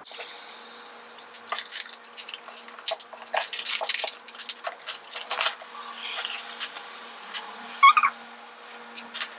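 A paper envelope being opened and its papers handled: irregular crinkling and rustling with small clicks, over a faint steady hum. About eight seconds in there is a brief, louder pitched sound.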